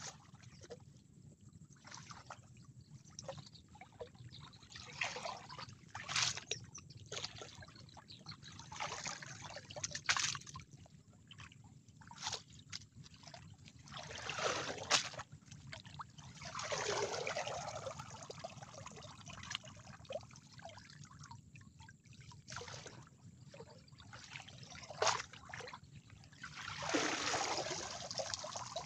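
Shallow muddy water splashing and trickling in irregular bursts, with drips in between and a few longer sloshes, the loudest about halfway through and near the end.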